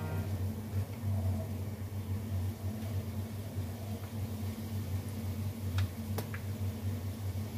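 Rice-flour dough frying in shallow hot oil in a wok, a faint sizzle over a steady low hum. Two light clicks about six seconds in.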